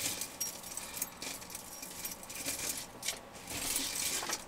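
A pile of costume jewelry (metal chains, beads and bangles) clinking and jangling in irregular bursts as a hand sifts through it.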